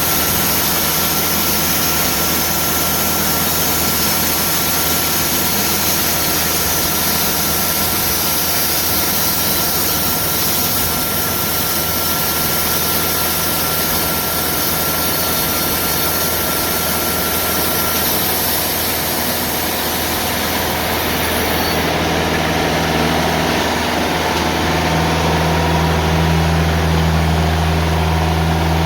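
Timberking sawmill's diesel engine running steadily under load as the bandsaw blade slowly cuts a wide round of hard, aged live oak, with a high hiss and a thin whine over it. About two-thirds of the way through the hiss and whine stop as the cut finishes, the engine note grows stronger, and the sound drops sharply near the end.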